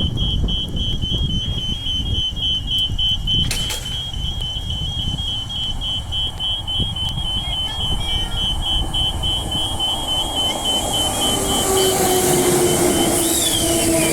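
A rapid, steady high-pitched electronic warning beeping over a low rumble. Near the end an electric train's hum and a rising hiss come in and grow louder as a train approaches.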